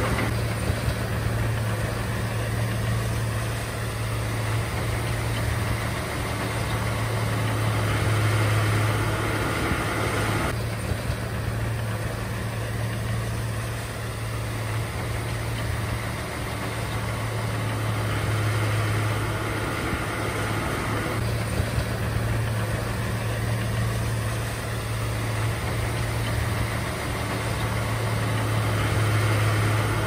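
Komatsu D31A bulldozer's diesel engine running steadily with a deep drone, growing a little louder and easing off again several times.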